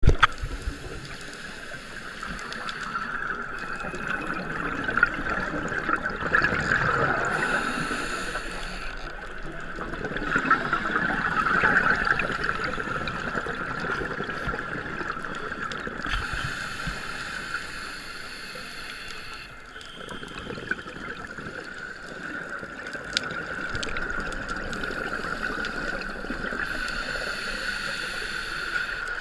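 Underwater ambience of a scuba dive: divers' exhaled regulator bubbles rushing in a few swells, over a steady whine.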